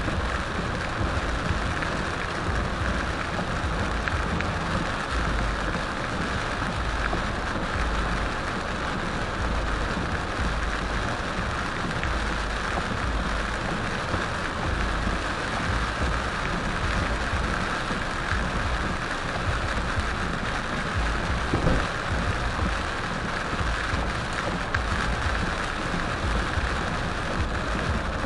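Heavy rain falling on a moving car's roof and windshield, a steady hiss over a low rumble of road and tyre noise on the wet highway, heard from inside the car.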